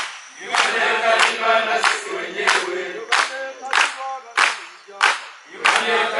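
A group of voices singing together, with a sharp hit on a steady beat about every two-thirds of a second.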